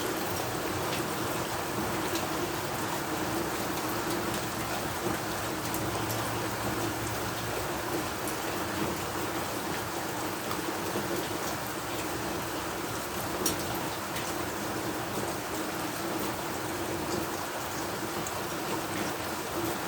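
Heavy rain falling steadily, with scattered sharper hits of single drops, one louder than the rest a little past the middle.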